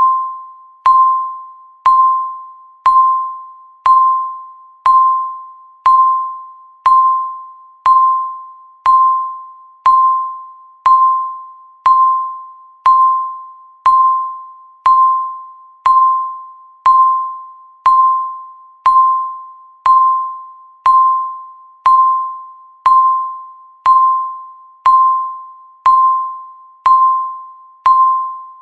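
A countdown timer's electronic beep, one steady mid-pitched tone sounding once a second, each beep starting sharply and fading away before the next, marking off the passing seconds.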